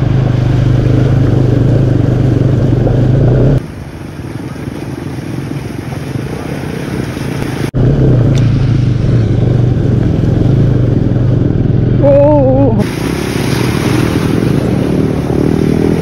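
Motorcycle engine running steadily on the move. A few seconds in, the sound drops abruptly to quieter noise without the engine hum, and the engine returns after a sharp click.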